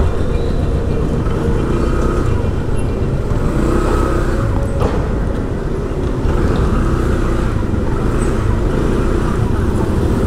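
Road traffic: a steady rumble of car and motorcycle engines and tyres passing close by.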